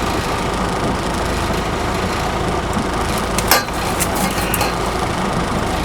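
Fishing boat's engine running with a steady hum and rush, a sharp knock about three and a half seconds in and a few fainter clicks after it.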